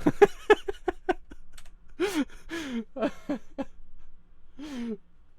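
A person's voice making short non-word sounds: a quick run of brief bursts with clicks in the first second, then a few separate sighs or gasps.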